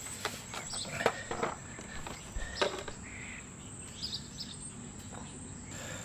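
Outdoor ambience of insects trilling steadily at a high pitch, with a few light clicks and taps in the first three seconds and faint bird chirps.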